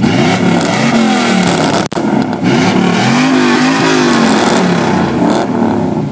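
Chevrolet Camaro SS V8 revved hard again and again through an aftermarket exhaust, the engine pitch sweeping up and falling back several times, with a momentary break about two seconds in.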